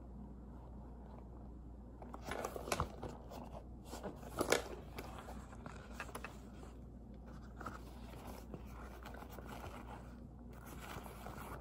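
Hands handling a canvas pencil case: fabric rustling and scraping, with a flurry of louder crackly scrapes about two to four and a half seconds in and lighter handling after.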